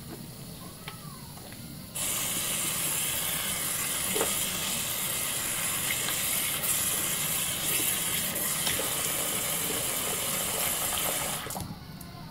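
Soap-lathered hands rubbing together. About two seconds in, the bathroom sink faucet is turned on and water runs in a steady hiss while the hands are rinsed under it. The water shuts off near the end.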